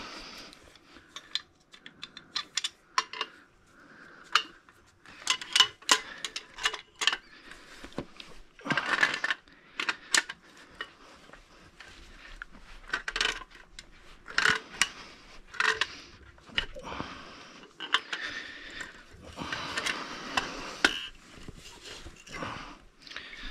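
Metal hand tools clinking and clattering as they are handled around a soft tool bag, with many separate sharp clicks and knocks and short stretches of scraping and rustling.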